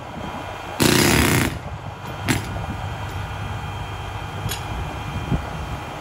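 Hose-fed pneumatic jackhammer firing in one short rattling burst about a second in, lasting under a second, over the steady low running of an engine. A single sharp click follows a second later.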